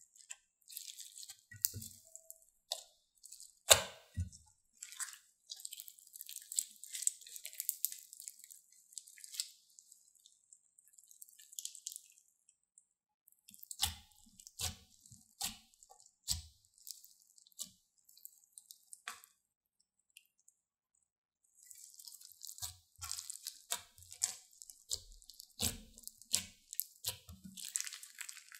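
Sticky slime packed with small foam beads being squeezed, pressed and stretched by hand: wet squishing with bursts of crackling clicks and small pops, broken by short pauses.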